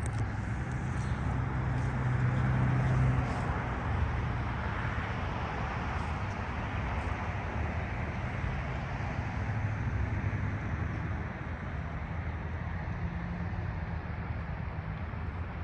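Road traffic hum: a steady wash of tyre and engine noise, swelling as a vehicle passes about two to three seconds in.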